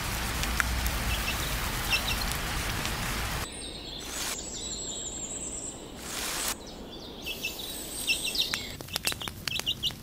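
Baby chick peeping: short high chirps in small groups, more frequent in the second half. For the first three and a half seconds they sit over a steady rain-like hiss that stops abruptly.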